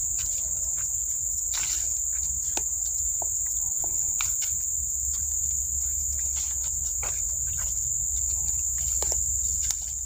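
A steady, high-pitched drone of insects, with scattered soft footsteps and rustles of walking on a path strewn with dry leaves.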